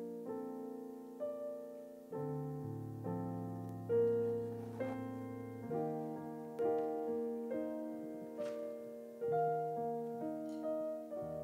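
Slow, soft piano introduction to a worship song: held chords, with a new note or chord struck about once a second.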